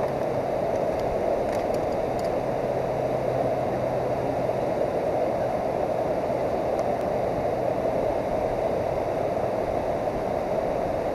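Steady rushing of a fast river current churning with white water.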